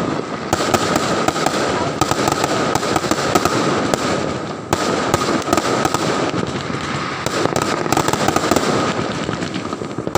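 Fireworks and firecrackers going off continuously, a dense rapid crackle of many small overlapping bangs, with one sharper crack about halfway through. A steady high whine runs underneath.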